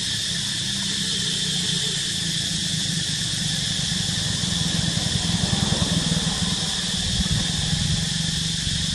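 A steady high-pitched hiss over a low hum, growing louder and more uneven for a couple of seconds about halfway through.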